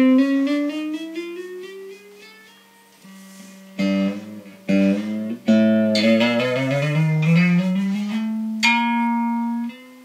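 Homemade scrapyard electric guitar played through a Fender guitar amp: plucked notes and chords that slide steadily up the neck and ring on, with fresh plucks about four and five and a half seconds in. The notes are being run along the frets to check them, and they sound clean with no hum.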